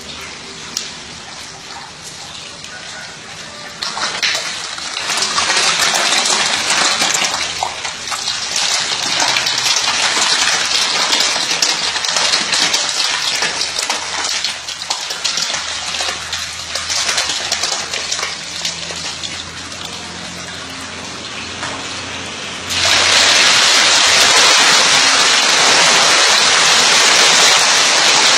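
Water splashing and churning as a dense mass of catfish thrash at the surface while feeding. It swells about four seconds in, full of small splashes, and about 23 seconds in jumps suddenly to a louder, even hiss of splashing.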